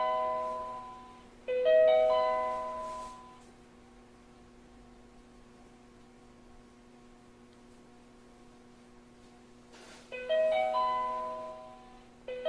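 Tobu Railway train's operation-information update chime: a quick rising run of four chime notes that ring out and fade, played in pairs about two seconds apart. One pair is fading at the start and sounds again about a second and a half in; after a pause of about seven seconds the next pair sounds from about ten seconds in. A steady low hum runs underneath.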